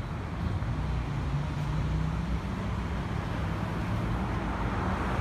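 Steady vehicle traffic noise: a low engine hum under a hiss of road noise that grows a little louder toward the end.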